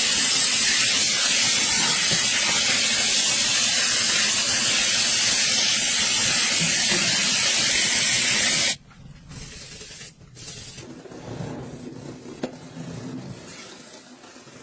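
High-pressure water spray hissing steadily on a motorcycle during washing, cutting off suddenly about nine seconds in. After that come quieter rubbing and handling noises with a few small knocks.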